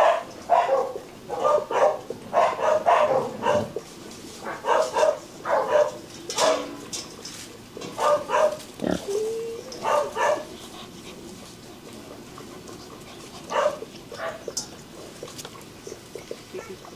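White long-haired Bac Ha puppies giving short grunting yips and play-growls in quick runs for about the first ten seconds, with a couple more a few seconds later. After that it goes quieter, with faint ticks as they eat from a steel bowl.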